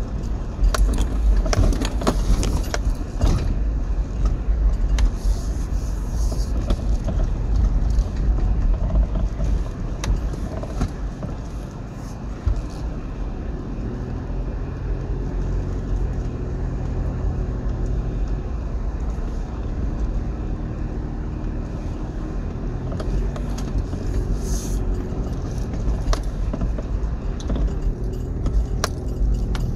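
Heard from inside the cabin, a 2005 Toyota Prado Landcruiser is driving slowly over a rough dirt forest track. The engine and tyres give a low rumble, and loose things in the cabin knock and rattle over the bumps. The rattling eases after about 12 seconds, when a steadier engine note comes through, then picks up again near the end.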